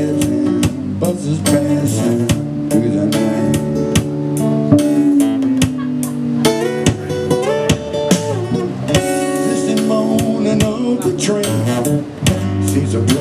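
A man singing a slow ballad while strumming an acoustic-electric Takamine guitar, performed live.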